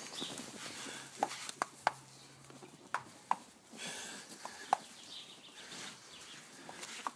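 A small dog's jaws snapping shut at falling grass seed: about eight sharp, irregular clacks of teeth. Around four seconds in there is a brief rustling hiss of seed pouring from the box.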